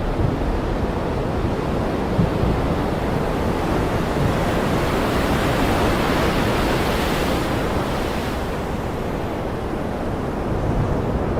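Ocean surf: a wave swells into a rushing hiss and washes in, then drops back about eight seconds in, over a steady low rumble of breaking water.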